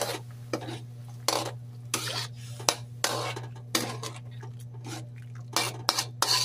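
Metal spoon scraping and clinking against a wok while stirring a thin sauce: a series of short strokes, roughly one or two a second, at uneven intervals.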